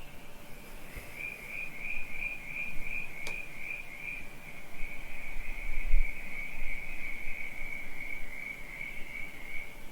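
A cricket trilling in one continuous high-pitched band. It swells about a second in, pulses roughly twice a second at first and then evens out. A single sharp click comes about three seconds in, and a low bump about six seconds in.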